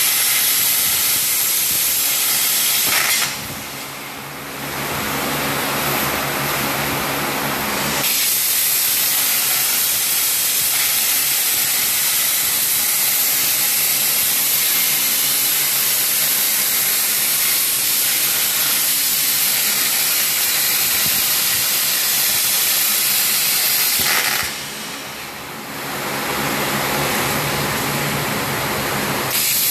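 CNC machine running with a loud steady hiss. The hiss drops away twice for a few seconds, about three seconds in and again near the end, leaving a lower hum with steady tones.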